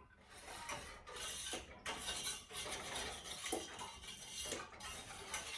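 Balloon whisk beating a lemon curd mixture, a steady rapid scraping and clinking of wire against the side of the pan or bowl.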